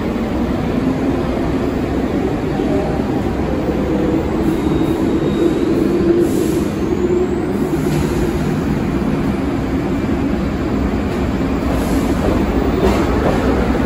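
New York City subway train running through the station with a steady, loud rumble of wheels on the rails, and a faint high whine rising briefly about five seconds in.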